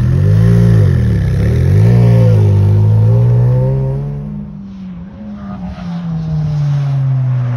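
Mid-engined Ferrari V8 sports car revving and accelerating away, its engine note rising and dipping through the gears. The sound fades as the car draws off into the distance, then settles to a steadier, lower hum.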